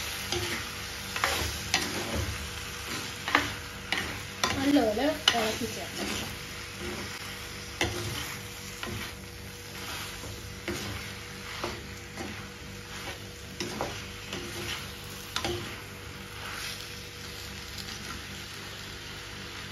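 Prawns, tomato, brinjal and shallots sizzling in oil in a clay pot while a spoon stirs them, scraping and knocking against the pot at irregular moments, most often in the first few seconds.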